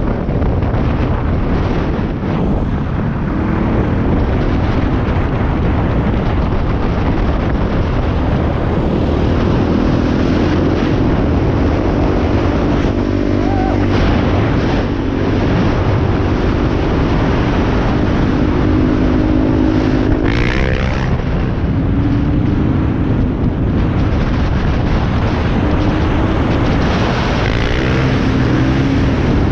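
450 dirt bike's single-cylinder four-stroke engine running under way on a trail ride, holding a steady pitch for several seconds in the middle and shifting pitch about twenty seconds in, over a constant rush of wind on the microphone.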